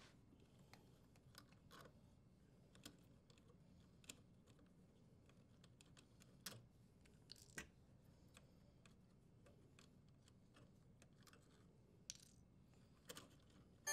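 Near silence broken by faint, scattered clicks as plastic wire nuts are untwisted and the power and ground wires are handled in a metal junction box.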